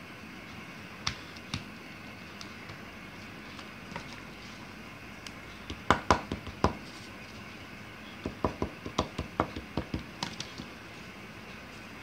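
Small pieces of paper being folded and handled by hand on a wooden table: scattered sharp crinkles and taps, loudest in a cluster about six seconds in, then a quick run of about a dozen clicks from about eight to ten and a half seconds, over a steady faint hiss.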